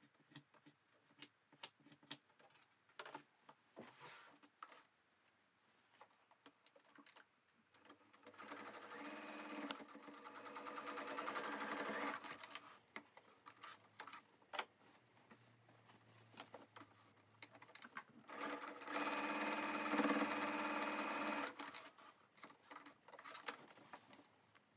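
Brother sewing machine stitching in two short runs of about four and three seconds, the second run a little louder. Small clicks and fabric handling come before, between and after the runs.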